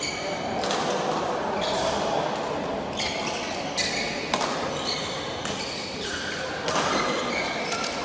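Badminton rackets striking shuttlecocks about once a second, irregularly, each hit a sharp crack with a short high ringing that carries in a large hall, over background chatter.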